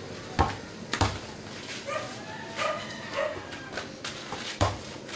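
A basketball dribbled on a packed-dirt yard: three dull bounces, two close together early and one near the end, with a few short high yelps in between.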